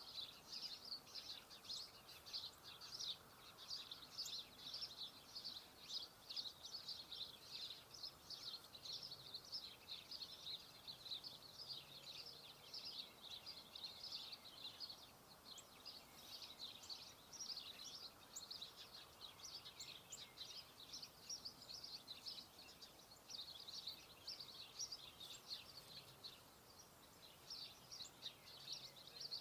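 Faint, continuous chatter of small birds: many quick, high chirps overlapping with no break.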